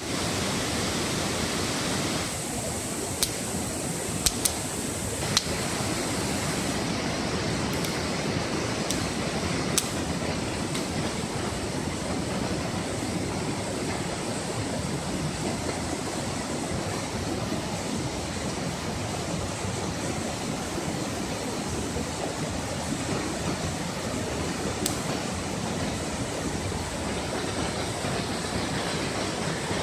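Campfire burning: a steady rushing noise with a few sharp pops, bunched in the first ten seconds and once more near the end.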